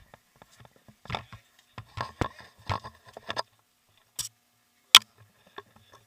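Rubbing, rustling and knocking of wetsuit fabric and dive gear against a body-worn camera, with irregular clicks and a few sharp knocks, the loudest about five seconds in.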